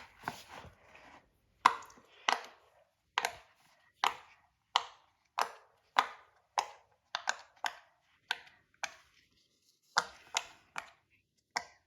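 Silicone pop-it fidget toy having its bubbles pushed through one by one: a steady series of sharp little pops, roughly one or two a second, with a brief pause near the end.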